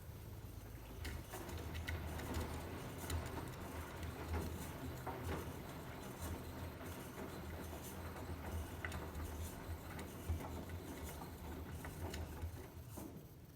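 Beko washing machine drum tumbling a load of towels at 60 °C: a low motor hum with irregular soft thumps and clicks from the falling wet towels, stopping near the end.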